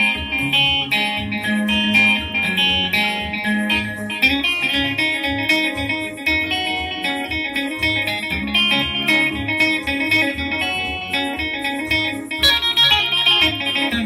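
Soukous-style jam: a single-cutaway electric guitar picks fast, bright, ringing melodic runs over an electronic keyboard accompaniment with a repeating low line, keeping an even rhythm.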